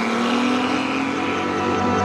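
BMW i8 hybrid sports car driving away, its turbocharged 1.5-litre three-cylinder petrol engine giving a steady note that rises slowly in pitch.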